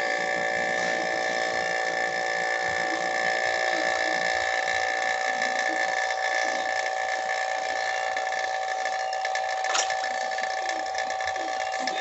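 Gas hissing and whistling steadily through a charging hose and valve into a refrigerator's sealed system, a high whine of several pitches held at an even level, as the system is put under pressure to find a leak.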